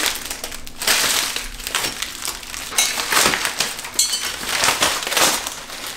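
Clear plastic wrap and white foam packing being pulled and crinkled off a metal chair part, in irregular bursts of rustling and crackling.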